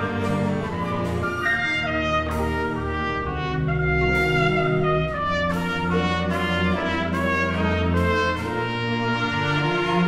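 Orchestral music with the brass section to the fore: full held chords that change about once a second over a strong low bass.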